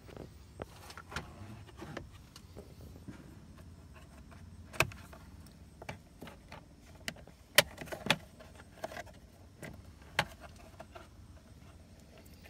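Hands handling plastic dash trim panels in a pickup's cab: scattered sharp plastic clicks and knocks, the loudest a little past halfway, over a steady low hum.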